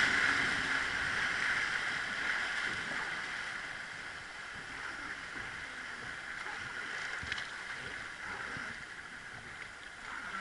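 Rushing white water of a river rapid churning around a wooden boat, loud at first and fading over the first few seconds as the boat moves into calmer water.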